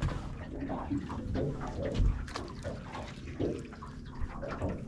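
Water sloshing against a small fishing boat, with scattered knocks and clicks from rods and tackle being handled.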